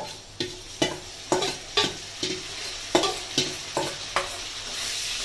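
Metal spatula scraping and knocking against a metal bowl, about two strokes a second, as spice paste is scraped out into a wok of frying onions. The hot oil starts sizzling steadily near the end.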